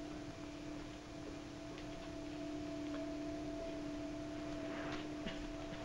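Steady electronic hum of two held tones, a spaceship sound effect, over a faint hiss with a few soft clicks.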